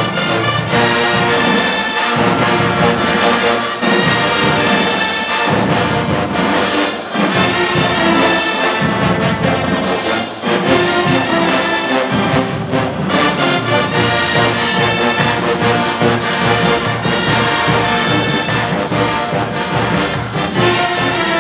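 Marching band playing loudly, with trombones and trumpets carrying the tune.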